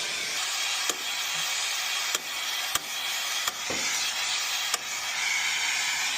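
Air-acetylene brazing torch flame hissing steadily, with a few sharp clicks scattered through.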